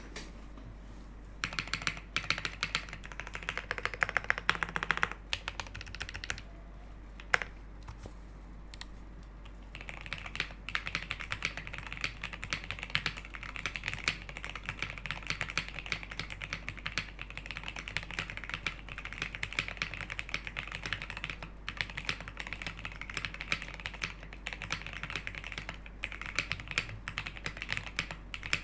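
Typing on a Cherry G80-3000 mechanical keyboard with ABS doubleshot keycaps on clone switches: a burst of rapid keystrokes, a pause broken by one lone keystroke, then steady continuous typing from about ten seconds in.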